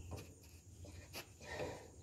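Faint hand handling of a hydraulic hose quick coupler, with a single light click a little over a second in.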